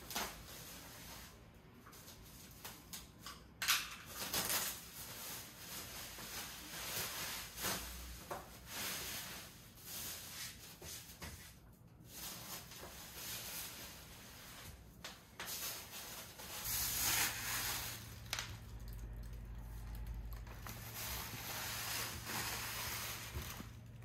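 Clear plastic wrapping film being pulled off a new plastic chair, rustling and crinkling in repeated bursts.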